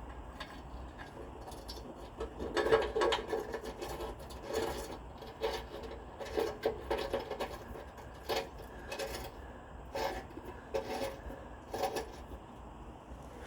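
Irregular bouts of scraping and rubbing, a dozen or so short strokes, as the new exhaust back box and its fittings are worked into position.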